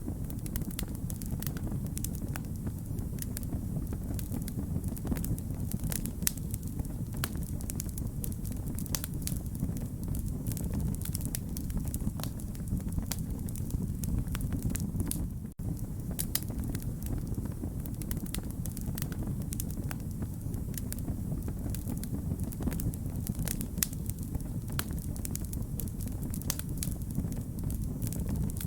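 Wood fire crackling: a steady low rumble of flames with frequent sharp pops and snaps of burning wood, broken by a momentary dropout about halfway through.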